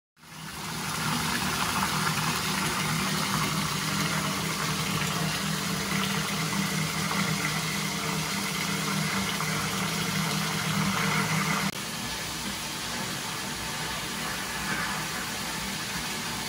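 Water running from a tap into a bathtub: a steady rush with a low hum under it. About twelve seconds in, the hum stops and the rush becomes a little quieter.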